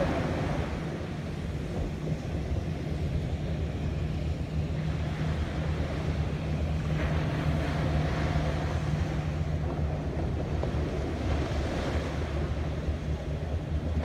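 Ocean surf breaking and washing up a sandy beach, swelling about seven seconds in and again near the end, with wind on the microphone and a steady low hum underneath.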